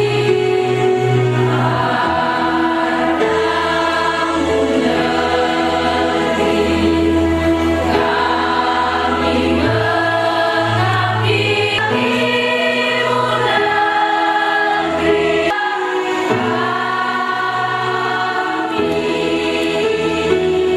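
A large group of young women singing a song together, with steady held notes of an instrumental accompaniment underneath.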